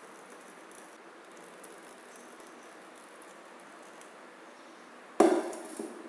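Hot milk poured from a pan into a glass cup, a faint steady pour, then a sudden loud knock about five seconds in.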